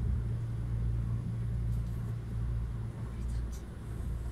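Kintetsu 80000 series Hinotori electric limited express train running, a steady low rumble of wheels on rail and running gear heard from inside the car, with a faint tick about three and a half seconds in.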